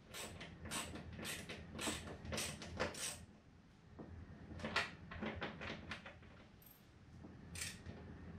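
Hand screwdriver turning a screw into the RC plane's fuselage: a run of short creaks with each twist, a pause about three seconds in, then another run and one last creak near the end.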